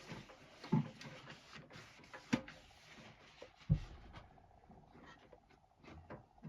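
Hands handling heater parts and tools during reassembly: scattered knocks and clicks, the loudest a dull thump a little after halfway.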